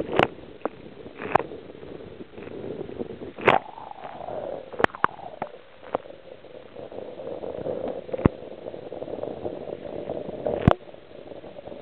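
Sea water sloshing and gurgling against a kayak hull, with sharp knocks now and then, about seven in all.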